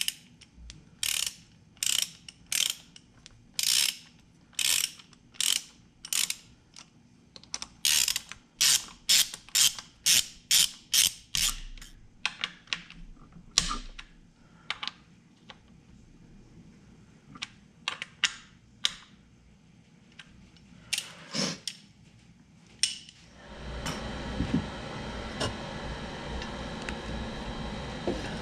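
Hand ratchet wrench clicking in repeated short strokes as a bolt is run in on the snowmobile's exhaust, the strokes coming faster for a few seconds in the middle. Near the end a steady rushing noise takes over.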